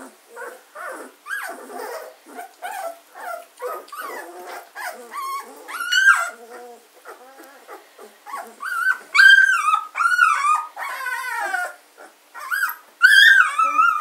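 Two-week-old German shorthaired pointer puppies whimpering and squeaking. Many short squeaks come first, then from about nine seconds in there are louder, longer whines that waver and fall in pitch.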